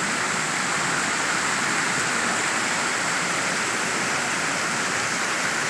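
Creek water running and splashing, a steady rushing sound.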